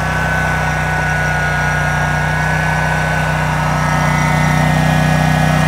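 Kawasaki FH721V 25 hp V-twin engine on a zero-turn mower running steadily on a freshly installed replacement carburetor, set with no adjustments.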